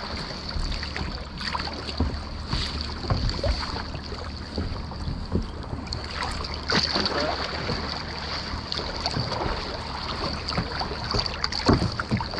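Lake water lapping and splashing close against the hull of a capsized canoe, with irregular small splashes and wind on the microphone at water level.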